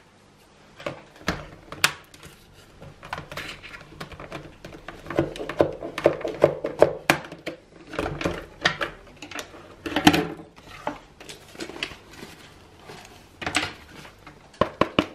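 A boxed children's bicycle helmet being unpacked by hand: irregular clicks, taps and knocks with short rustling and scraping of packaging, loudest about halfway through and again around two-thirds of the way.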